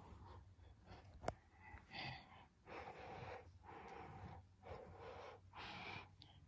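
Faint breathy huffs of a person breathing or blowing close to the microphone, four short bursts in the second half, with a single click about a second in.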